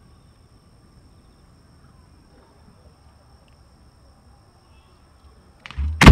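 Faint steady chirring of field insects, then near the end a sudden loud boom of an aerial fireworks shell, followed by a rumbling echo.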